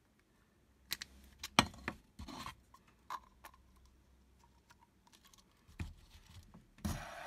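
Hard plastic clicks and knocks as the 3D-printed hex tiles and arms of a fidget spinner are handled and pressed together, the sharpest click about one and a half seconds in. Near the end the spinner is set going on its stand and a steady whir starts.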